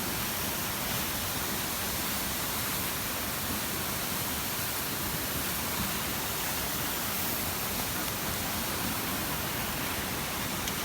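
Steady rushing roar of a large waterfall, water crashing onto rocks, an even unbroken noise.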